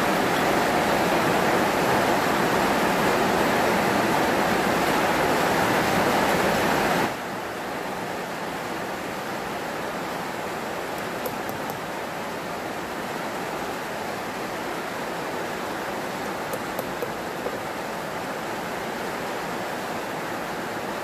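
Heavy rain falling steadily, a dense hiss that drops suddenly to a quieter level about seven seconds in and carries on evenly, with a few faint ticks.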